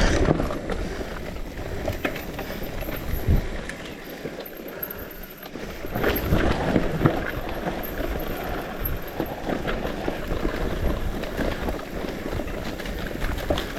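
Bicycle rolling down a rough, muddy dirt track: steady tyre and rolling noise with scattered knocks and rattles over the bumps, easing off briefly midway and picking up again.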